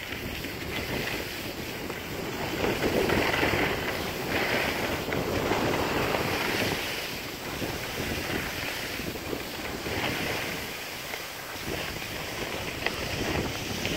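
Skis scraping and hissing over packed snow, swelling and easing with each turn, with wind rushing across the microphone.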